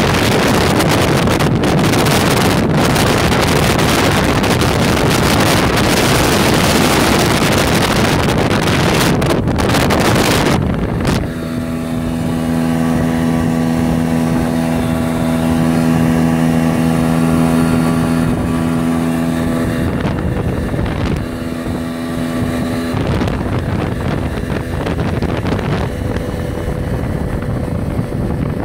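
Golfstream (Parsun) T8 BM 8 hp two-stroke outboard motor running steadily at speed, pushing the boat. Heavy wind noise on the microphone covers it for the first ten seconds or so and again near the end. In between, the engine's steady, even note comes through clearly.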